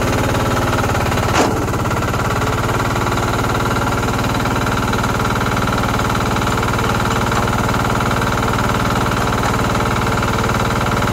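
Yanmar tracked mini dumper's 10-horsepower diesel engine idling steadily, with a single sharp knock about a second and a half in.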